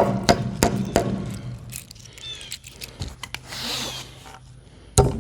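Rapid hammer blows, about three a second, nailing a billboard sheet to the wooden rails of a pole barn. The blows are loud at first, fade after a second or so and pick up again near the end, over a low steady hum.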